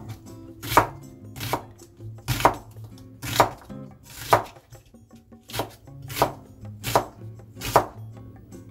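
Knife slicing through a peeled onion on a plastic cutting board: about nine even cuts, a little more than one a second.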